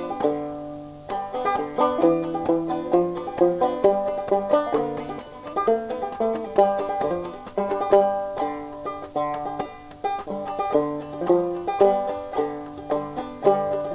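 Instrumental background music: a quick tune of plucked string notes, each struck sharply and then fading.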